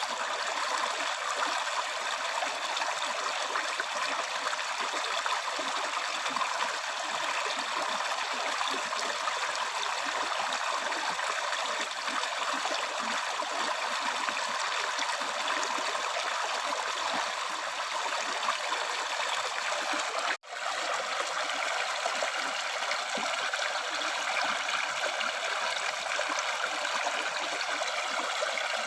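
River stream flowing steadily, an even rushing and trickling of water, with a split-second dropout about twenty seconds in.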